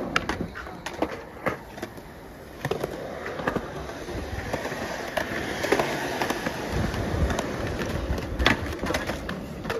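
Skateboard wheels rolling on smooth concrete, with scattered clacks of the board early on and the rolling rumble growing louder in the last few seconds. A sharp clack of the board near the end as the rider comes down from a trick over a handrail.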